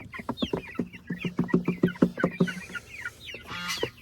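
Young Cornish cross meat chickens peeping and clucking: many short falling peeps over a quick run of low clucks, with a louder call near the end.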